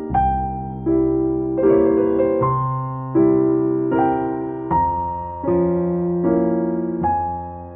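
Outro music: an electric piano playing a slow sequence of sustained chords, each struck and left to fade, changing about every three-quarters of a second.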